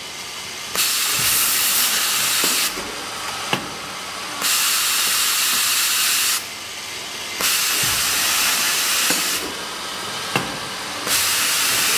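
Multi-station automatic tapping machine cycling: a loud hiss from its spray nozzles switches on for about two seconds and off for about a second, four times over. Two sharp clicks fall in the quieter gaps.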